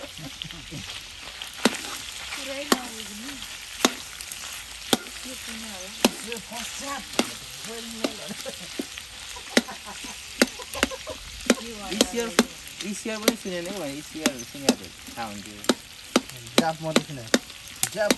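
Food sizzling as it fries in a pan while being stirred, the spoon knocking against the pan about once a second and more often in the second half.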